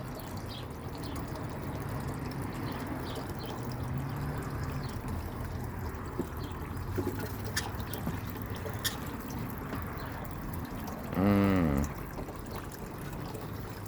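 Steady trickling of running water under a low hum, with a few faint ticks. A short wordless voice sound comes about eleven seconds in.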